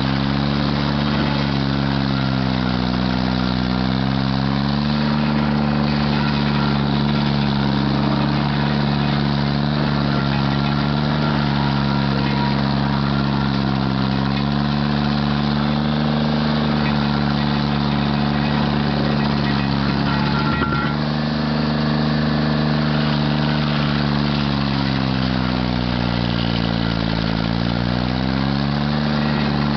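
Stump grinder engine running steadily, its pitch dipping and rising slowly every few seconds. A short knock about two-thirds through.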